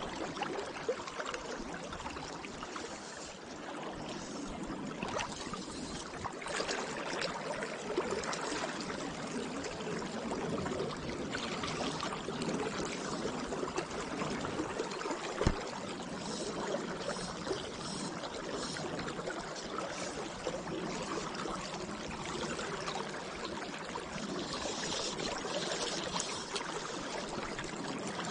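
River current flowing steadily past the bank, with one brief thump about halfway through.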